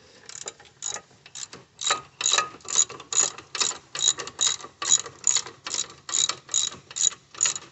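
Hand ratchet with a 16 mm socket clicking in quick, even strokes, about two or three a second, as the wheel hub's mounting bolts are tightened down.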